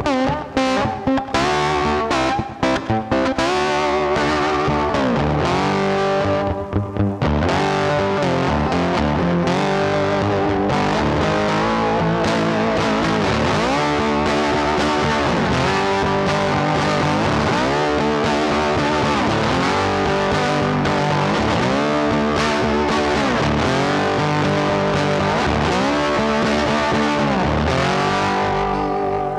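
Instrumental background music led by a distorted electric guitar with bending notes. It is stop-start for the first several seconds, then plays on steadily.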